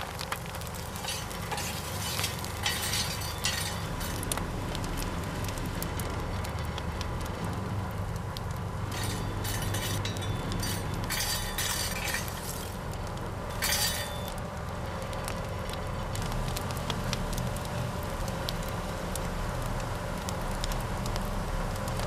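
Coal forge fire crackling and hissing as it is built up into a working fire, over a steady low hum, with several short louder rushes of noise.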